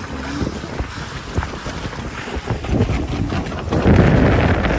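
Wind buffeting the microphone on a small sailing dinghy under way, a rough low rumble that grows louder about four seconds in.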